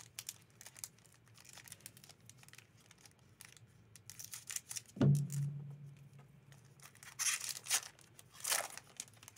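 Foil booster pack wrapper crinkling in gloved hands and being torn open, with a run of small crackles and two louder tearing rips near the end. About halfway through there is a short low hum.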